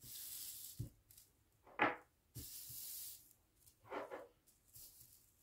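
Faint rustling and brushing of a paper sewing pattern and fabric under hands, in two short hissy stretches, with two brief louder handling sounds between them as the pattern is smoothed and weighted with metal washers.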